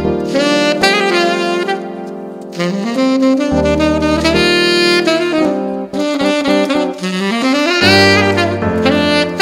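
Background jazz music with a saxophone carrying the melody over a bass line.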